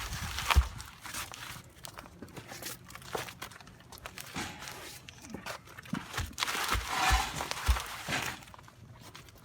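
Irregular rustling and crunching, like footsteps and handling in brush or wood debris, with a few short dull thuds.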